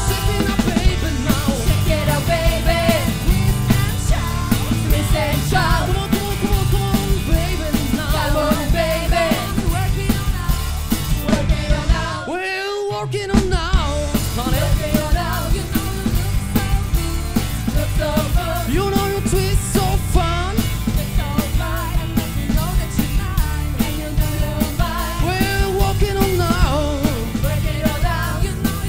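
Live rock band playing with singing: drum kit, electric guitars and bass under the vocals. About twelve seconds in, the drums and bass drop out for a couple of seconds, then the full band comes back in.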